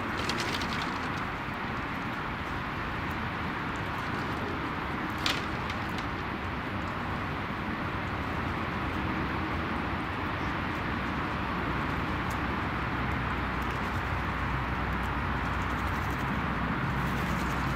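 Steady outdoor background hiss and rumble at an even level, with a single sharp click about five seconds in.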